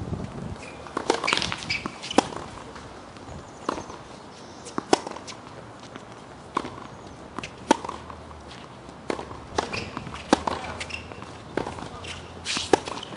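Tennis rally on a hard court: a ball struck by rackets and bouncing off the court, about ten sharp pops spaced roughly a second or so apart.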